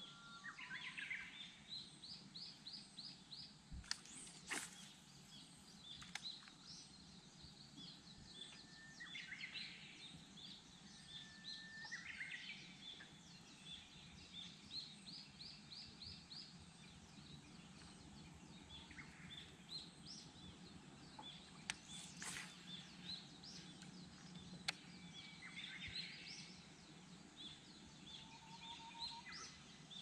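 Japanese bush warblers (uguisu) singing, several held whistled notes each breaking into a quick higher warble, among rapid runs of repeated high chirps. A few sharp clicks come about four seconds in and again past twenty seconds, over a faint steady low hum.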